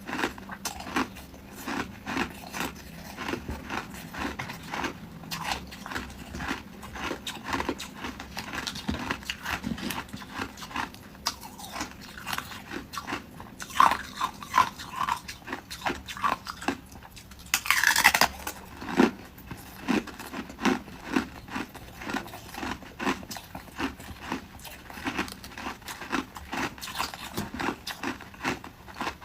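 Ice being chewed: a fast, continuous run of crunches, with a brief loud high squeak-like sound about two-thirds of the way through.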